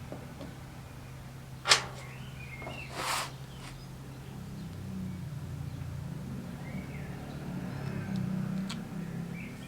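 Steady low electrical hum, with a sharp click a little under two seconds in and a short hiss about a second later.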